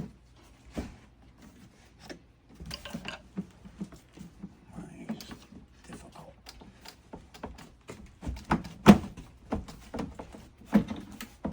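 Scattered clicks, taps and knocks of a Jeep TJ Wrangler door's interior panel and window-channel pieces being pushed and worked back into place by hand, with a louder knock about nine seconds in and another near the end.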